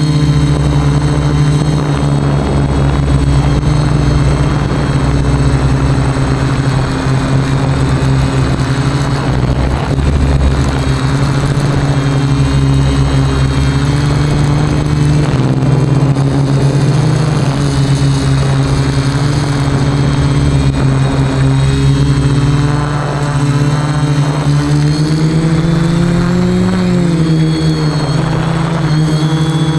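Quadcopter's electric motors and propellers humming steadily in flight. The pitch bends down and up a few times in the last third as the throttle changes.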